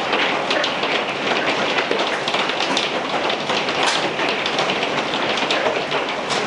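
Hail falling in a storm: a dense, steady clatter of many small hailstone impacts over a hiss of rain.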